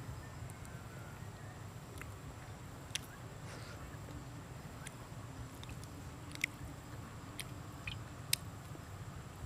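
A person chewing a soft piece of cooked egg, with several short, sharp mouth clicks and smacks scattered through.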